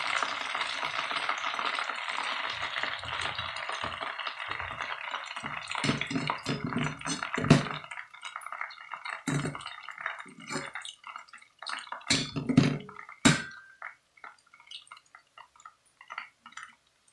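Hot oil sizzling as chicken wings and chips deep-fry, the hiss fading away over the first half. A metal slotted spoon clinks and knocks against the steel pot several times as the wings are lifted out, with only scattered clinks near the end.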